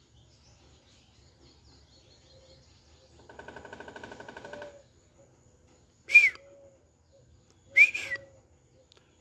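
Woodpecker calling: a rapid rattling call a little after three seconds in, then two sharp, loud calls with a bent, falling tone, about six and about eight seconds in.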